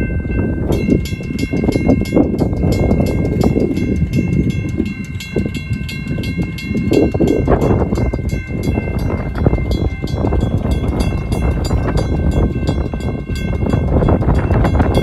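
Railroad crossing bells starting up. A General Signals Type 2 electronic bell gives a steady high ring from the start, and under a second later a WCH mechanical bell joins with fast, even strikes; both keep ringing. Heavy wind rumbles on the microphone underneath.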